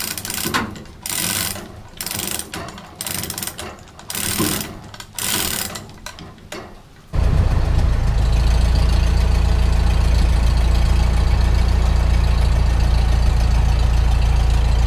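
Light-duty manual chain hoist being hand-pulled to lift a pickup box, its chain and ratchet clattering in short bursts under a second apart. About seven seconds in, this gives way abruptly to a steady, loud low rumble.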